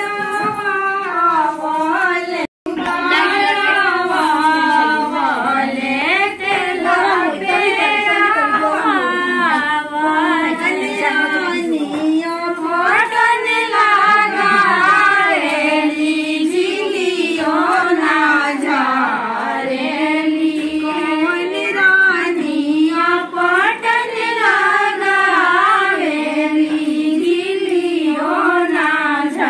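Female singing voice carrying a wavering, unaccompanied melody, with a short break about two and a half seconds in.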